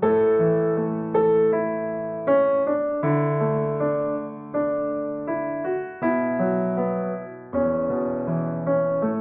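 Slow piano or electric piano music: chords and single notes struck about once a second, each ringing and fading before the next.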